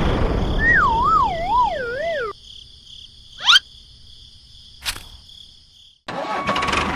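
A wavering siren-like warble over running machine noise, cut off abruptly after about two seconds. Then a short rising whoosh, a single click, and a small motor starts running again near the end.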